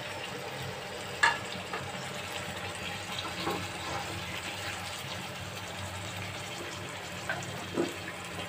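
Mixed vegetables simmering and sizzling in a little water in a nonstick pan, stirred with a wooden spatula. Sharp knocks of the spatula on the pan, the loudest about a second in and a few more near the end.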